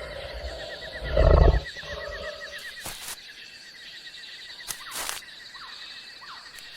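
A large animal's deep call, about a second in and over quickly, over jungle ambience: a steady high insect buzz and a fast repeating trill. A few sharp snaps follow, like twigs cracking.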